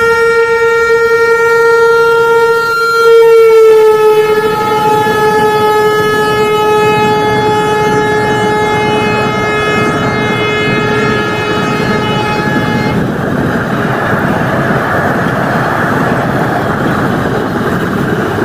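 Indian Railways WAP-5 electric locomotive sounding one long horn blast as it comes past. The horn peaks and drops slightly in pitch about four seconds in, then holds until about two-thirds of the way through. The loud running noise of the passenger coaches passing close on the rails builds from there and continues.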